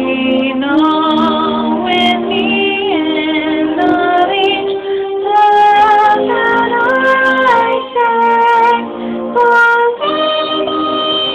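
A woman singing a hymn with vibrato on long held notes, accompanied by piano.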